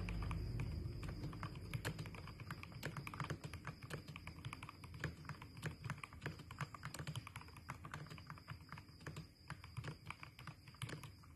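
Typing on a mechanical keyboard fitted with JWICK Black linear switches: an irregular, quick run of keystroke clicks, several a second, growing somewhat quieter toward the end.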